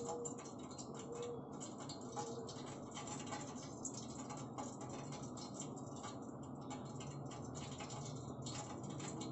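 Faint soft scratching and small ticks of hands pressing and rolling a grated paneer and potato kofta mixture over a steel plate, over a low steady hum.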